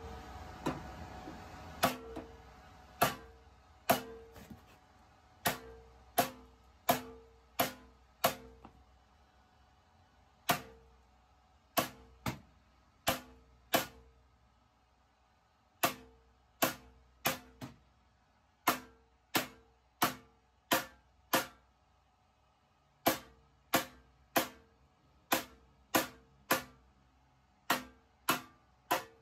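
Hammer blows on the go-kart's steel tube frame: about thirty sharp strikes in runs of four to six with short pauses between, each ringing briefly with a clear metallic tone.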